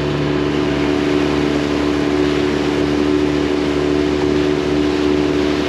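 Small outboard motor driving an inflatable dinghy at steady speed, a constant drone over the rush of water from the hull and wake.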